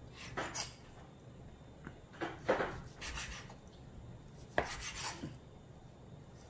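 Chef's knife slicing through a cooked steak and scraping on a plastic cutting board, in three short bouts of sawing strokes about two seconds apart.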